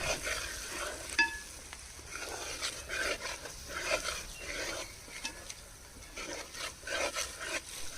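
Spiced masala being stirred and scraped in a hot pan, with irregular strokes and a light sizzle; a short metallic clink rings out about a second in.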